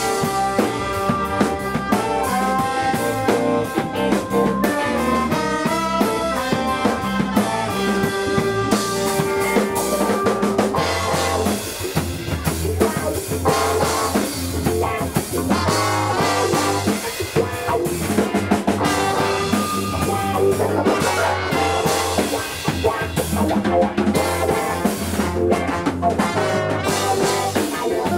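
A live funk band playing an instrumental passage: drum kit, guitar, keyboard and a horn section with trumpet. Held horn-like notes stand out in the first ten seconds, and the bass fills in more heavily from about eleven seconds.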